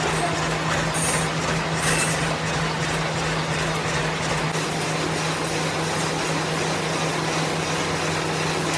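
Workshop machine tool running steadily with a constant low hum under a dense mechanical noise, with two brief higher hisses about one and two seconds in.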